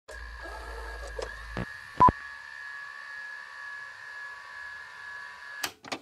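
Steady electronic tones over a hiss, like a radio or signal receiver, broken by a few sharp clicks. A loud click with a short beep comes about two seconds in. A low hum stops shortly before it.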